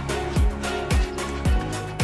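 Background music with a steady beat: a deep electronic kick drum about twice a second over sustained bass and chords.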